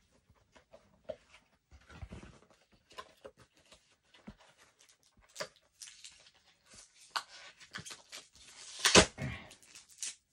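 Sticky tape being pulled off a toy's packaging: scattered clicks and rustles of handling the box, with a louder rip near the end.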